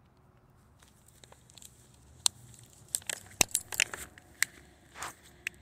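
Irregular sharp crackles and clicks of handling noise right at the microphone. They start faintly about a second in and grow more frequent and louder after about two seconds.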